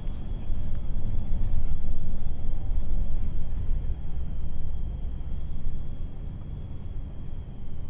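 Passenger bus engine and road noise heard from inside the cabin while driving: a steady low rumble that eases slightly about two-thirds of the way through, with a thin steady high-pitched whine over it.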